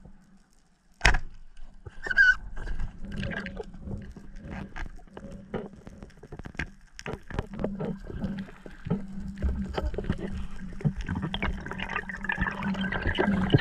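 A wooden band-powered speargun firing underwater: one sharp crack about a second in, after near quiet. After it comes bubbling, gurgling water noise with many small clicks and knocks, growing louder toward the end as the diver swims up with the speared fish.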